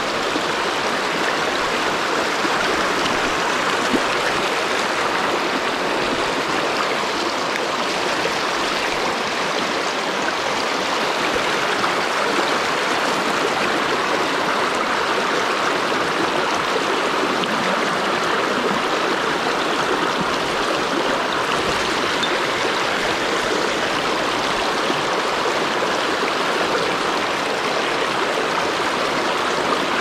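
Mountain stream rushing steadily over a shallow, stony riffle close by: an even, unbroken splashing rush of water.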